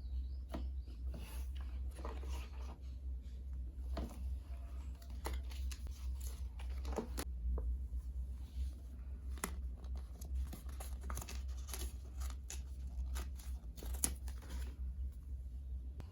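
Plastic parcel packaging and bubble wrap being cut and torn open by hand: irregular crinkling, tearing and snipping rustles, over a steady low hum.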